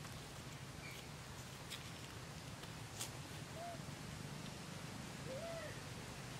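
Quiet outdoor background with a steady low hum, a few soft clicks, and a few short, faint chirps in the second half.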